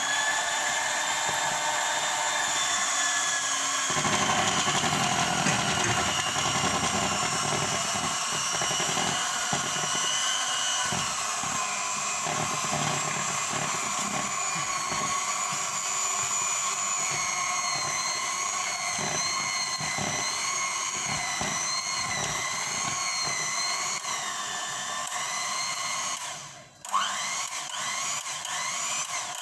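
Electric hand mixer running, its motor whine wavering in pitch as the beaters work flour into the batter, with an uneven low rattle of the beaters in the bowl from a few seconds in. Near the end it stops for a moment and starts up again with a rising whine.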